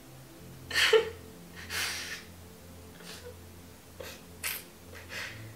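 A woman crying into a pillow: about five short, sharp sniffs and shaky breaths, the loudest about a second in.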